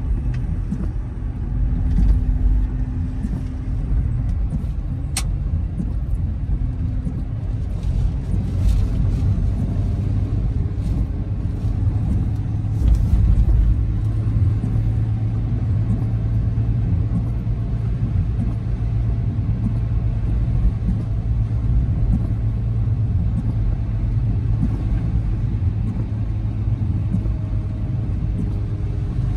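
Car driving on a wet road, heard from inside the cabin: a steady low rumble of engine and road noise, with one sharp click about five seconds in.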